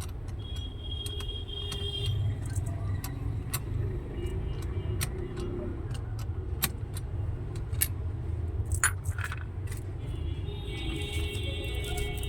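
Small metal parts clinking and clicking as an oscillating cutter blade and its fittings are handled and fitted to an angle grinder's oscillator adapter, with sharp clicks scattered throughout over a steady low hum.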